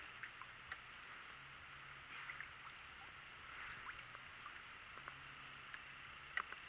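Faint outdoor ambience on a still pond heard from a kayak: a steady high hiss with scattered light ticks and small chirps, and one sharper tick near the end.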